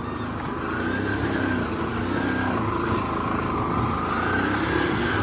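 Three-wheeled auto-rickshaw's small engine running under load as it drives through deep mud, its pitch rising and falling slowly with the throttle.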